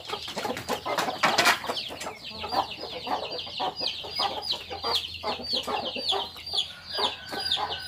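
Chickens: a steady stream of high, falling chick peeps, several a second, over lower clucking from grown hens and a rooster, with one louder squawk about a second and a half in.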